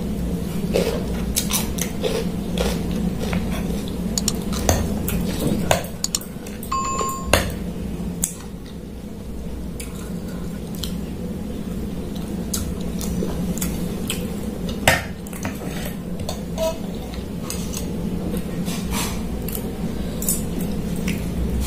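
Metal spoon and fork clinking and scraping against a ceramic plate in irregular clicks during eating, over a steady low hum.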